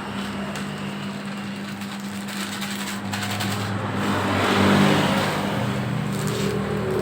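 Home-built 3 kg dough mixer running, its electric motor giving a steady hum under the churn of the bowl. The churning grows louder and rougher about four to five seconds in.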